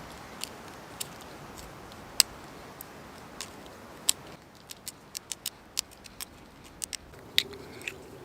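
Penknife blade carving a hole into a silver birch trunk: a run of short, sharp clicks as the blade bites and twists in the wood, coming faster in the second half.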